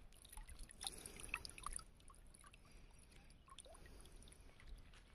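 Faint water sounds at the edge of a reservoir: small splashes, drips and ticks in the shallows, where a just-released carp is still being held and shown.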